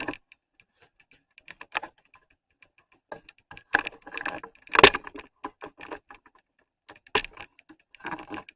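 Irregular small plastic clicks and taps as a 3D-printed handlebar cover plate is handled and pressed into place on a motorcycle's handlebar controls, with the loudest knock about five seconds in.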